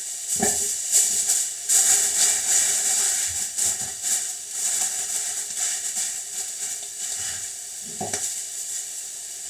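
Food sizzling in a frying pan, a steady hiss that rises and falls, with a few brief knocks of handling.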